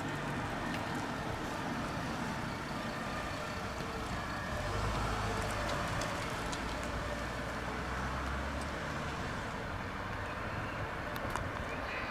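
A large vehicle's engine running steadily under outdoor traffic-like noise. A louder low drone comes in for a few seconds around the middle, and a couple of sharp clicks sound near the end.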